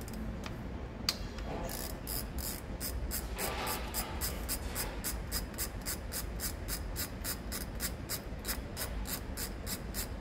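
Socket ratchet wrench clicking in an even rapid run, about five clicks a second, as it is worked back and forth on a bolt.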